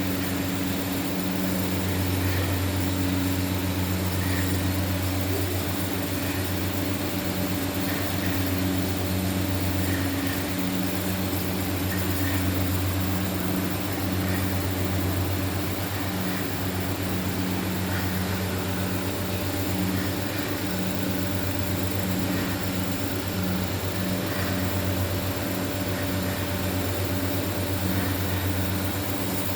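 Automatic mawa kettle's stirrer drive running: a steady electric-motor hum with a hiss behind it.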